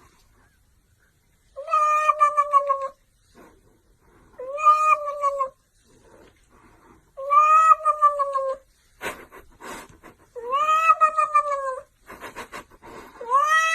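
A domestic cat giving long, drawn-out meows, one about every three seconds, each rising a little and then falling; the last begins near the end. There are short scuffling noises between the later calls.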